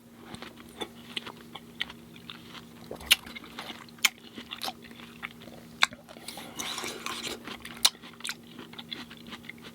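Close-miked chewing of fresh fruit in coconut water: irregular wet smacks and crunches, with a denser, noisier stretch about six to seven and a half seconds in. A faint steady hum runs underneath.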